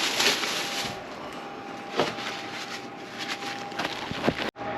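Old valve cover gasket, hardened and brittle, being picked and scraped out of the valve cover: rough scraping with a few sharp cracks as pieces break off, one about two seconds in and another near the end. The gasket has failed by hardening and crumbling.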